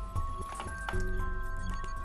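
Background score music with sustained synth notes over low bass notes, and a couple of light clicks.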